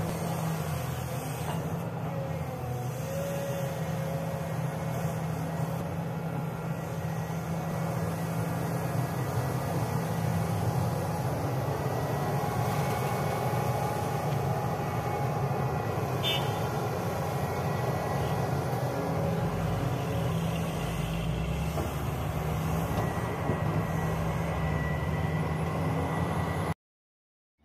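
Diesel engine of a SANY hydraulic excavator running steadily with a low drone as it digs and loads soil into a dump truck. The sound cuts out abruptly near the end.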